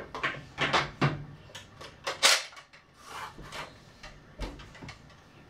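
Hard plastic clacks and knocks of Nerf Retaliator blasters being handled and set down on a table, the loudest a little over two seconds in, thinning out toward the end.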